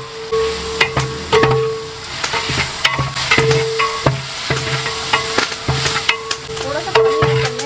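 A long metal ladle scraping and knocking against the inside of a large aluminium cooking pot as meat and spices are stirred, with a constant sizzle of frying underneath.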